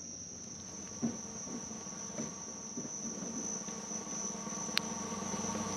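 Insects trilling: one steady, unbroken high-pitched note, with a single sharp click about five seconds in.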